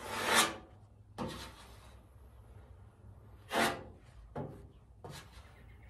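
Thin metal body-filler spreader scraping across wet body filler on a car fender, in about five separate swipes: a long, loud one at the start, a short one about a second in, another loud one about three and a half seconds in, and two lighter ones near the end.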